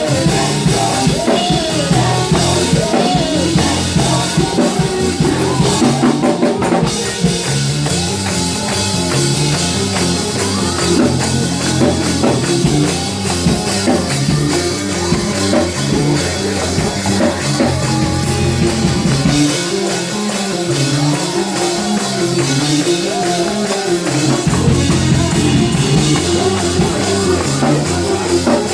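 Live gospel praise music with drum kit and bass, and a faint sung line.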